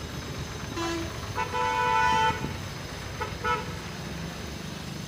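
Vehicle horns honking three times at slightly different pitches. The longest honk comes about a second and a half in and lasts nearly a second. Under them runs a steady low rumble.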